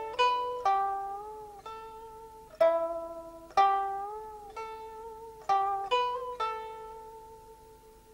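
Background music: a plucked string instrument playing a slow melody of single notes, each ringing out and fading, some bent up and down in pitch.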